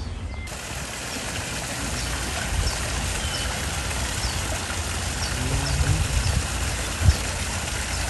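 Steady rushing noise with a low rumble beneath it, and faint short high chirps repeating about every half second through the middle.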